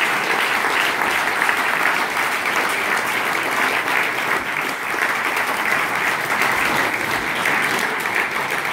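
Audience applauding steadily, a dense mass of hand claps from a concert hall full of seated listeners.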